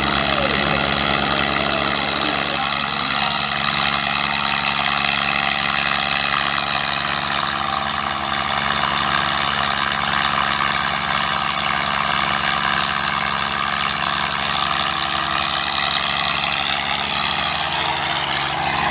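Two Swaraj tractor diesel engines running under full load at a steady pitch as the tractors pull against each other in a tug-of-war.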